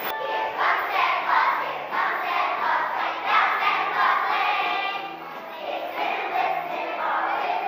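A choir of first-grade children singing together, holding sustained notes.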